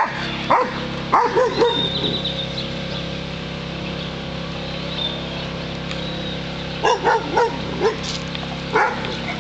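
Dog barking in short runs of quick barks: a few about a second in, several more around seven seconds in, and one more near the end.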